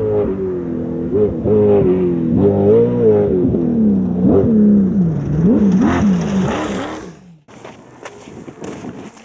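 Class 11 VW Baja Bug engine under load, its pitch rising and falling repeatedly. About seven seconds in the engine sound cuts away abruptly, leaving quieter irregular rattles and knocks.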